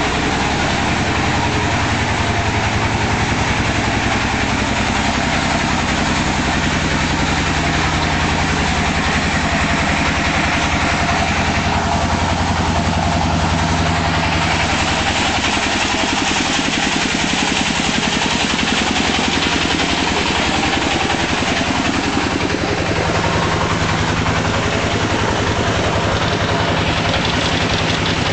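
Engine-driven concrete mixer running steadily, its engine chugging at an even, rapid beat.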